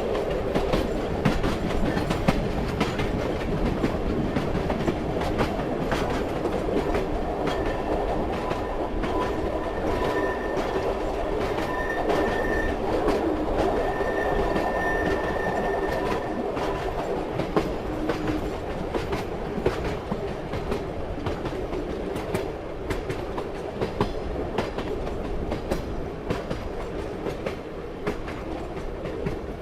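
Railway carriage running along the track: a steady rumble with the wheels clicking over rail joints. A faint thin whine runs for several seconds in the middle.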